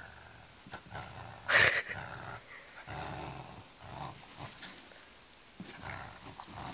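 Cocker spaniel growling in play while tugging on a rope pull toy, in several short bouts, with one louder, sharper burst about one and a half seconds in.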